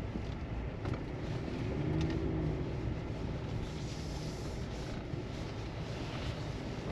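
A vehicle engine running steadily, a low even rumble with no sudden change.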